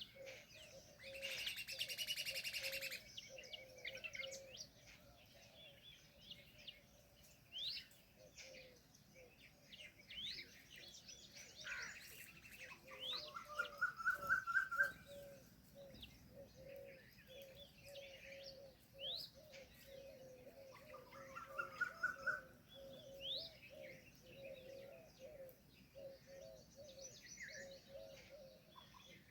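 A chorus of several wild birds calling. A harsh, buzzy call sounds about a second in, a short rising trill repeats three times, and quick upward-sweeping whistles come now and then, all over a steady run of low repeated notes.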